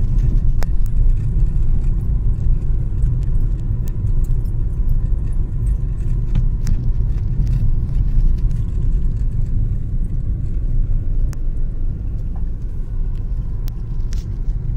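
Steady low rumble heard inside a car driving slowly over a bumpy grass-and-dirt field track, with scattered light clicks and rattles from the cabin.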